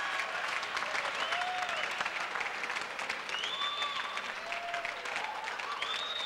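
Studio audience applauding steadily after a joke, dense clapping with a few drawn-out pitched calls from the crowd rising and falling above it.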